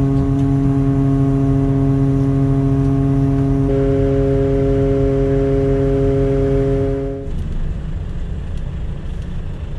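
Truck-mounted loader crane's hydraulics running, a steady pitched whine over the truck's diesel engine while the crane sets a suspended load. The whine changes in tone a few seconds in and cuts off abruptly about seven seconds in, leaving a lower engine rumble.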